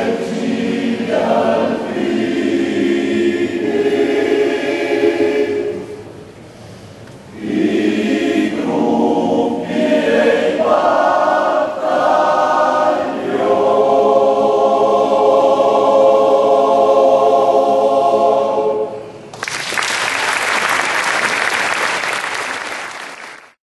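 Alpini male choir singing a cappella, its last phrase ending on a long held chord, then applause that fades out near the end.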